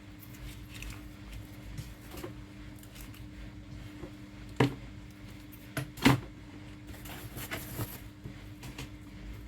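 Packs of cat food being handled and set down: light rustling with a few sharp knocks, the two loudest about four and a half and six seconds in, over a faint steady hum.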